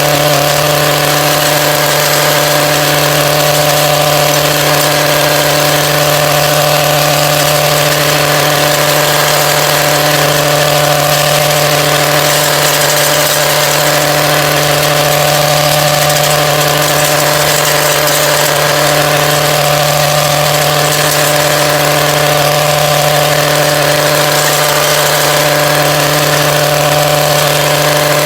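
Stihl Yard Boss MM 56 C cultivator's small two-stroke engine running steadily at idle, an even, unchanging note, running smoothly now that its filter, spark plug and carburettor have been serviced.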